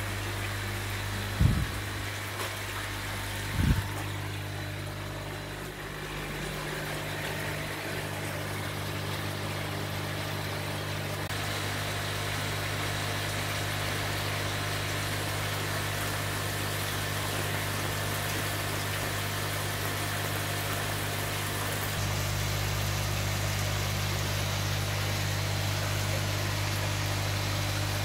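Steady low hum of aquarium air pumps and filters running in a fish hall full of tanks. Two sharp knocks come in the first four seconds.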